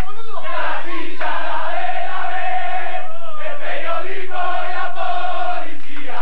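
A group of men chanting a football song together in celebration, loud, in long held notes repeated phrase after phrase.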